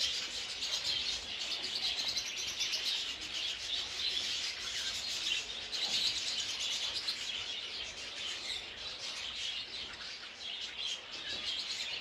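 A flock of small finches in an aviary chirping together, a dense, unbroken chatter of many overlapping short, high calls.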